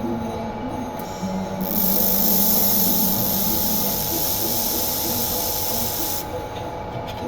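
Laser welder firing: a steady, high hiss switches on about one and a half seconds in and cuts off suddenly about a second before the end, over a constant machine hum.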